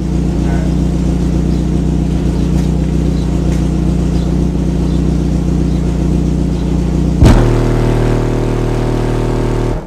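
A steady low drone from the car's engine running and charging. About seven seconds in, a loud bass test tone ('burp') from two Sundown SA-12 subwoofers kicks in sharply, holds for about two and a half seconds and cuts off. It is a clamp test of the strapped amplifiers, metered at about 149 dB in the trunk.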